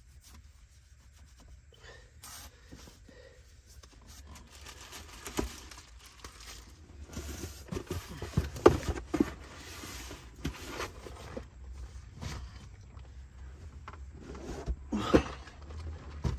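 Rustling of clothing as a sock is pulled on, then cardboard boxes and loose items being shifted and scraped about, with scattered knocks; the loudest knocks come a little past halfway and again near the end.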